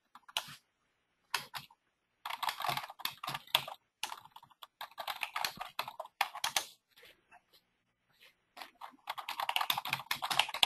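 Typing on a computer keyboard in runs of rapid keystrokes, with short breaks between them.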